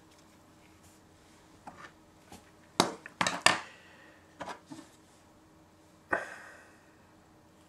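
Small hard plastic camera-accessory parts handled and knocked against each other and the desk: a few sharp clicks and knocks, the loudest cluster about three seconds in and another knock about six seconds in.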